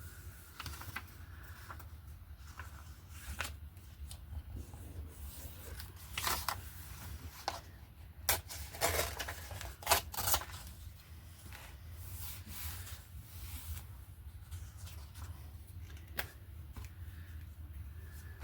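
Paper being handled and cut with scissors: short rustles and snips in uneven bursts, busiest in the middle, over a low steady hum.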